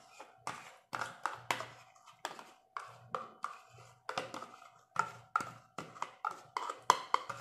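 Repeated sharp taps on an upturned plastic yogurt cup, knocking the thick yogurt out into a plastic bowl: an irregular series of short knocks, two or three each second.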